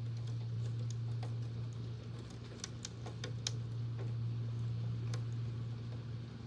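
A fan's steady low hum, with scattered sharp ticks of rain striking a hard surface, coming in a quick cluster about halfway through.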